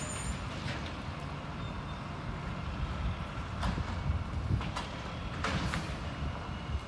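Automated side-loader garbage truck's diesel engine running with a steady low hum as its hydraulic arm lifts and dumps a trash cart. Several short clanks and knocks come through, the loudest about five and a half seconds in.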